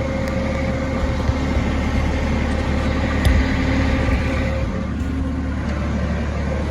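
Forklift engine running steadily with a low, even hum, with a faint click a few seconds in.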